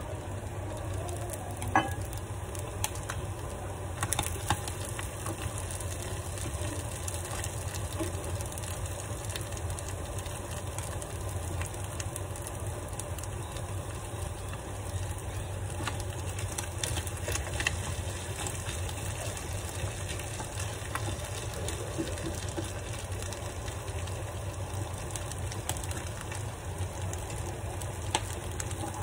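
Food sizzling as it fries in a non-stick frying pan, steady throughout, over a constant low hum. A few short clicks of the spatula and plate against the pan, the loudest about two seconds in.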